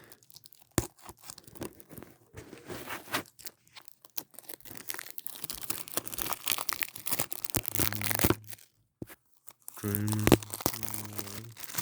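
Plastic shrink-wrap being torn and peeled off a Blu-ray case, with irregular crinkling and crackling.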